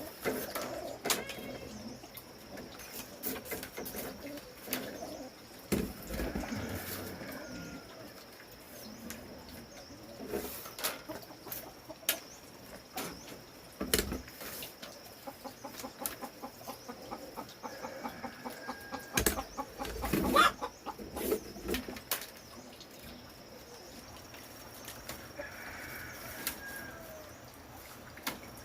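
Chickens clucking and flapping their wings amid scattered knocks and clatter, over a steady high-pitched tone.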